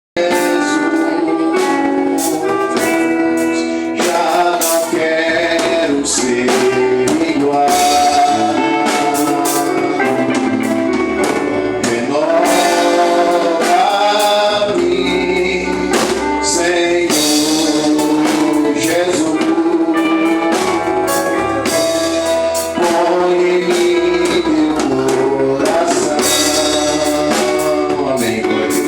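Gospel worship music: singing over a band with drums.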